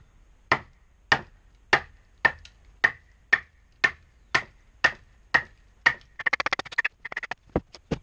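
A club striking the back of a steel blade about twice a second, a dozen sharp knocks each with a short metallic ring, as the blade is batoned down into a hickory stave. Near the end, a quick run of crackling as the hickory fibres split apart, then two last knocks.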